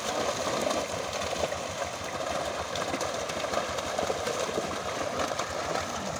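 Many fish thrashing in a net held in shallow water, making dense continuous splashing like a fast, uneven rattle.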